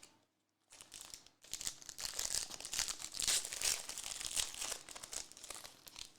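Trading-card pack wrapper crinkling as a pack is handled and opened, starting about a second in and stopping near the end.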